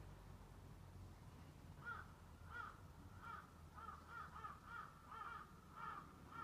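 A crow cawing: a faint, quick series of about ten short caws that starts about two seconds in.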